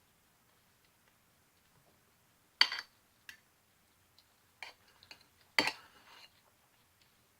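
A few short, sharp clicks and taps of cutlery on a plate during eating, the loudest about two and a half and five and a half seconds in.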